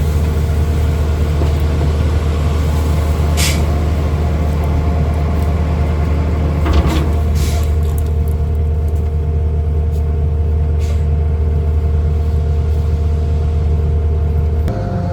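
Heavy equipment engine running steadily with a deep low hum, with a few brief hisses and clicks around the middle; the sound shifts abruptly just before the end.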